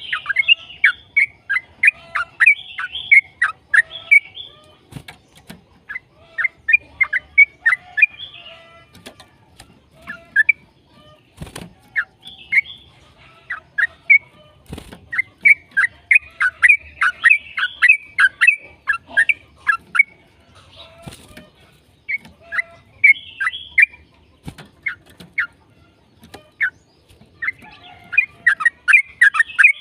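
Yellow-vented bulbul (trucukan) song: long runs of rapid, chattering notes in bursts of several seconds separated by short pauses, with a few sharp clicks between phrases.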